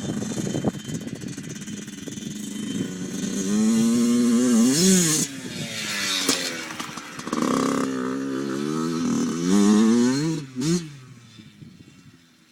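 Small two-stroke dirt bike engine revving up and dropping back several times, its pitch climbing and falling, loudest in the middle. It fades out near the end.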